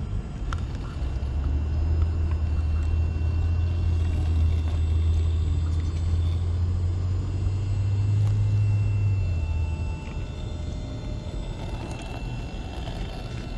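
A steady low rumble that swells about a second in, holds, and fades away about ten seconds in.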